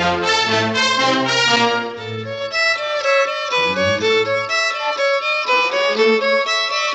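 Orchestral cartoon title music. The full orchestra plays for about the first two seconds, then it thins out to a violin carrying the melody over light accompaniment.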